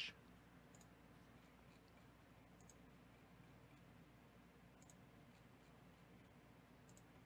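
Near silence with a few faint computer mouse clicks, spaced a second or two apart, over a low steady hum.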